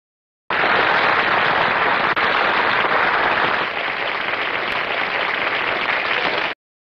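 Audience applauding: many hands clapping in a dense, steady patter that starts abruptly about half a second in and cuts off suddenly near the end.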